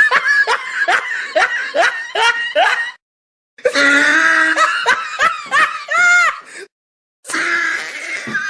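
People laughing in a quick run of short bursts, then more laughing and voices. The sound cuts to dead silence briefly about three seconds in and again near seven seconds.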